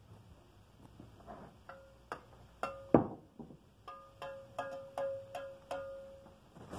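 Steel mason's trowel striking a red clay brick to trim it: a series of sharp knocks, the loudest about three seconds in, with the blade ringing on a steady pitch after each strike.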